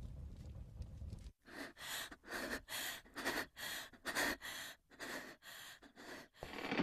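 A young woman's quick, uneven breathing and gasps, about two breaths a second, after a low hum cuts off about a second in.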